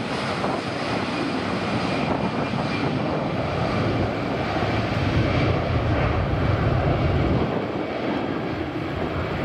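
Jet aircraft engines running at the airport: a steady rumble that swells for a few seconds in the middle, with a faint high whine over it.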